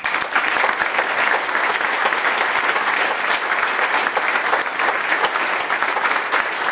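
Many people applauding: dense clapping that starts abruptly and holds steady.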